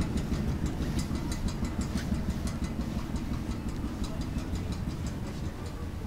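Flatbed store cart loaded with a boxed pool table rolling across the floor: a steady low rumble with many quick irregular clicks and rattles.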